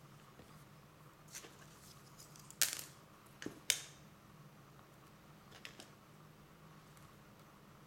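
Small hard plastic model-kit parts being handled: a few sharp clicks and taps as pieces knock together and are set down on a cutting mat, the loudest two about two and a half and three and a half seconds in.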